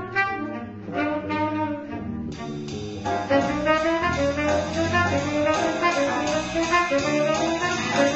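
Saxophone ensemble playing with electric bass guitar underneath. About three seconds in, the sound grows fuller and louder as more parts come in.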